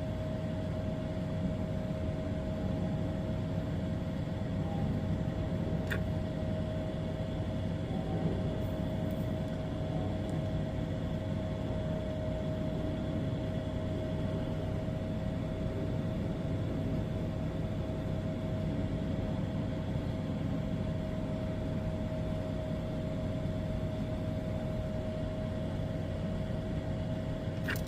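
Steady background machine hum with a constant whine above it, and one faint click about six seconds in.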